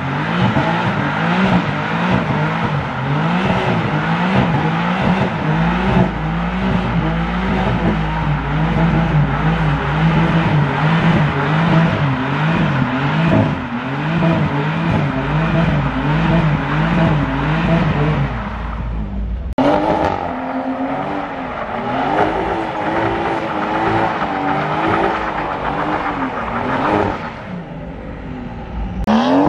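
BMW M4's twin-turbo straight-six revving up and down in quick, repeated waves as the car drifts, with tyre squeal. About two-thirds of the way through, a cut brings in a second car, a BMW 1 Series hatchback, revving and sliding in the same wavering way, then fading.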